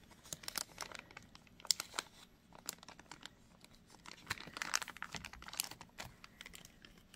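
Small clear plastic bead bag crinkling and rustling in the fingers as a bead strand is worked back into it, with scattered light clicks, busiest a little past the middle.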